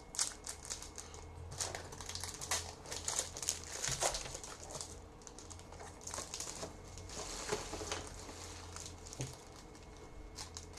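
Trading cards and their packaging being handled: irregular rustling and crinkling with many small clicks, busiest around two to four seconds in and again near eight seconds.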